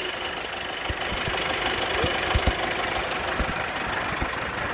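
Vermeer BC1800A wood chipper's 4.5-litre John Deere turbo diesel idling steadily just after a cold start, with a smooth idle.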